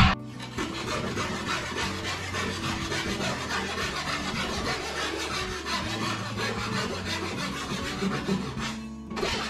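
A hand saw cutting a notch into a wooden flooring board, steady back-and-forth sawing with the teeth rasping through the wood.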